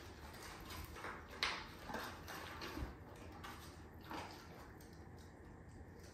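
A dog rooting with its nose in a cardboard box, rustling and scraping the cardboard and the paper inside. A sharp click comes about a second and a half in and a dull knock near three seconds.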